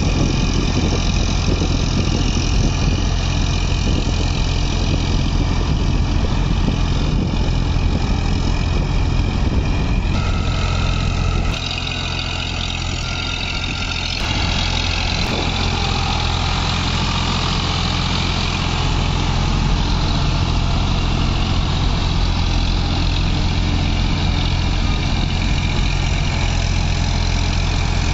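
Eicher 557 4WD tractor's three-cylinder diesel engine running steadily under load as it drives a rotavator through a flooded paddy field. It is briefly quieter near the middle.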